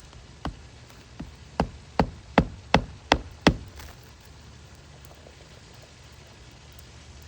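Eight sharp hammer blows, coming faster and louder, as a hammer drives a nail.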